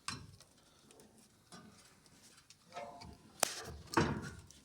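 Scattered clicks and knocks of washing-machine parts being handled as the motor tab is lifted and its wiring worked free, with a sharp click about three and a half seconds in and a louder scraping knock just after.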